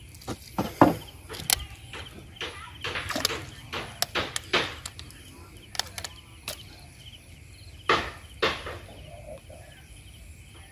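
Irregular knocks and splashes from a fisherman working a long pole and net over the side of a wooden canoe on the river.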